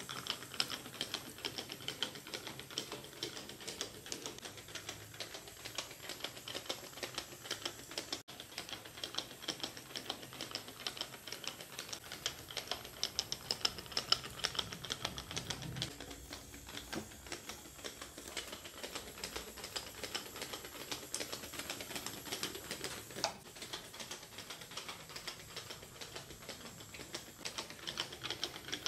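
Twelve-legged Strandbeest-style walking robot made of wooden craft sticks walking, its stick legs and linkages clicking and clattering rapidly against the floor and each other in a dense, continuous patter.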